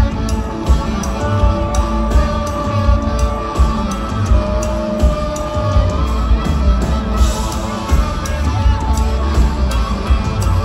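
Live rock band playing loud through the PA, with electric guitars, bass and drums keeping a steady beat. Sustained reedy notes sit over it, from a harmonica the frontman holds cupped against the microphone.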